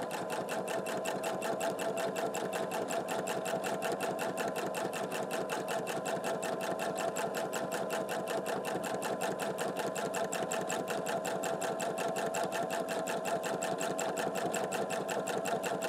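Domestic sewing machine running steadily at speed during free-motion quilting: a steady motor tone under a fast, even clatter of needle strokes.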